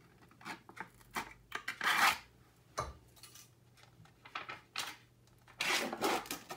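Kitchen handling sounds of a knife cutting half out of a block of sunflower margarine in its wrapper: scattered light clicks and scrapes, with a louder rustling scrape about two seconds in and another near the end.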